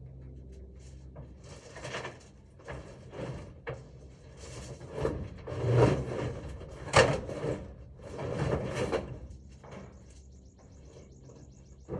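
Irregular rubbing, scraping and knocking sounds in bursts, with a sharp knock about seven seconds in.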